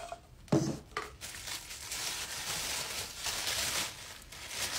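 White packing wrap crinkling and rustling as hands pull it out of a cardboard tube, after a short thud about half a second in.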